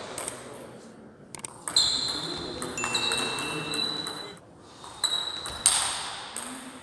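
Table tennis rally: the plastic 40+ ball clicking sharply off rackets and the table, a handful of hits with a short pause around the middle. The hits echo in a large hall.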